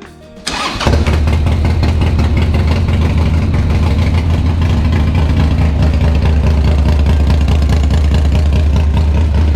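Harley-Davidson V-twin starting about half a second in and settling into a loud, steady idle through a freshly built 2-into-1 exhaust.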